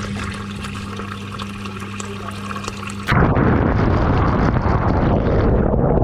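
Kitchen tap water running and splashing onto spiny lobsters in a stainless steel sink, with a steady low hum under it. About three seconds in, the sound turns suddenly louder and muffled: a close rush of water right at the microphone.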